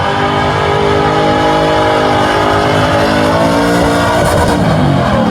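Holden Commodore's engine revving hard and held at high rpm during a burnout, its pitch rising about four seconds in.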